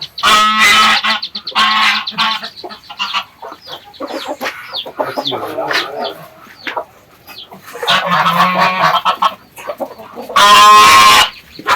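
Farmyard poultry calling: four loud, drawn-out calls, two near the start and two in the last few seconds, with softer high chirps in between.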